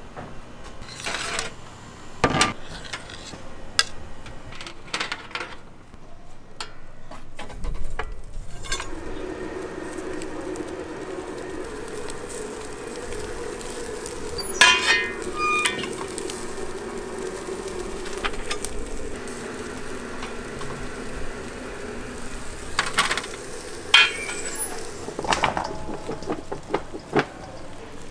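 Kitchen sounds: scattered clinks and knocks of metal utensils and pans over food sizzling. A steady hum comes in about nine seconds in.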